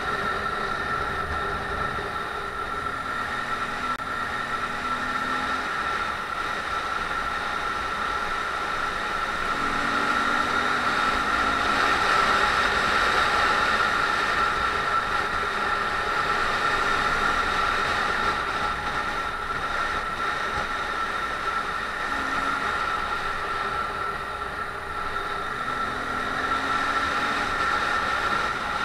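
Honda MSX125's single-cylinder four-stroke engine running under way, with wind and road noise rushing over a microphone on the moving bike. Its pitch rises briefly a few times as it pulls between corners.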